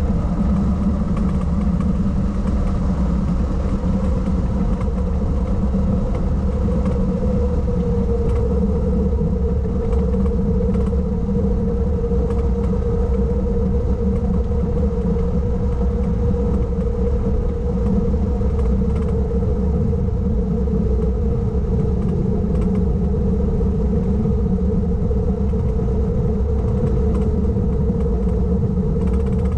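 Car engine running at a steady, unchanging pitch under light load while coasting downhill, over a constant low road rumble.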